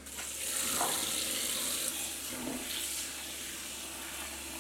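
Kitchen tap running a steady stream of water into a bowl of rolled oats to cover them.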